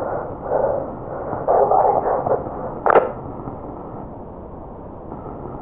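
Two-way police radio transmission: muffled, narrow-sounding bursts of voice through the radio, one sharp crack about three seconds in, then steady radio hiss.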